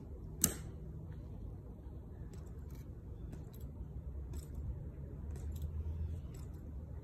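Tomb guard sentinel's footsteps, the metal taps on his heels clicking on the stone as he marches, with one sharp, loud click about half a second in.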